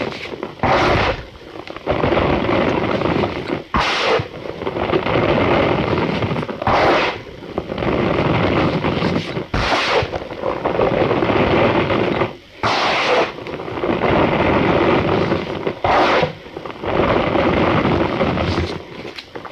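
Cornstarch powder being squeezed and crushed, a continuous squeaky, crunchy scrunching with a sharper, louder burst about every three seconds.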